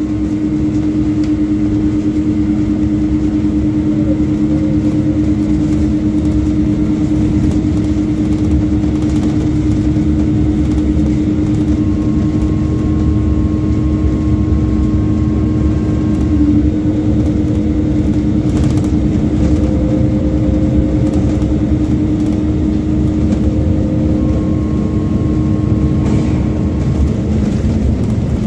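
Cabin sound of a MAZ 205 city bus under way: steady engine rumble and road noise with a constant hum.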